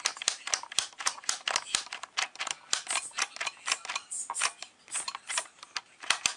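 Plastic temperature dial of a Tefal steam iron being turned by hand, giving a quick, irregular run of sharp clicks, several a second.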